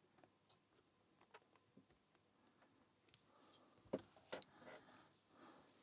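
Faint small metal clicks and scraping from tools working inside a padlock's core, a shim or pick being worked against the pins. A few scattered ticks at first, then a busier run of clicks and scratching from about three seconds in.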